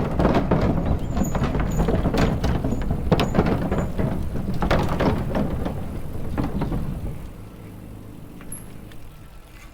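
E-bike riding noise on a trail: tyre and frame rattle with many clicks and knocks over a low rumble, easing off about seven seconds in.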